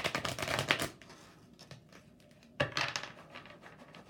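A deck of oracle cards being riffle-shuffled by hand: a fast flutter of card edges for about a second, lighter shuffling, then a second shorter riffle near the three-second mark.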